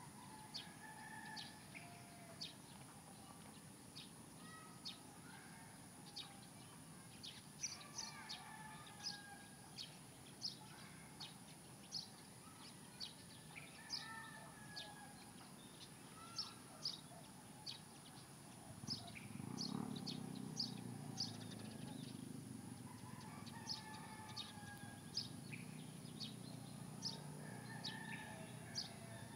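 Birds chirping in short, sharp calls over and over, with lower, gliding calls among them. About two-thirds of the way through, a low rumble comes up and stays.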